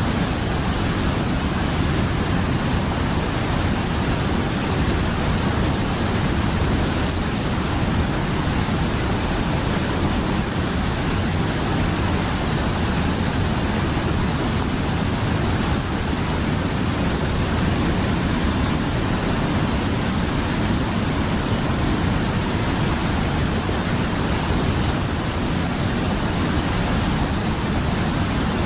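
Mountain river rushing steadily over rocks, a continuous even roar of flowing water.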